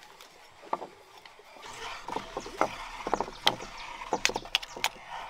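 Watermelon juice splashing and sloshing, with many small knocks and clicks of handling, setting in about a second and a half in.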